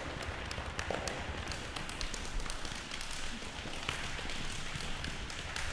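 Scattered light taps and clicks at irregular intervals over a steady hiss and low rumble.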